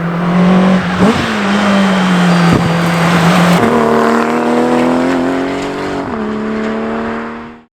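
Sports car engine running hard under way, its pitch stepping up about halfway through, climbing slowly, then dropping again near the end as gears change.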